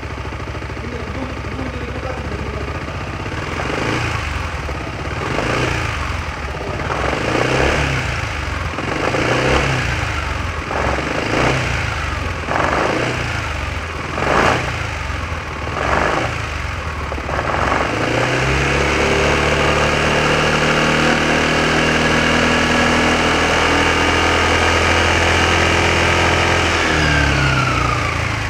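Yamaha X-MAX 300 scooter's single-cylinder four-stroke engine idling, then blipped about ten times in quick succession, each rev rising and falling. It is then held at a steady higher speed for about nine seconds before dropping back toward idle near the end.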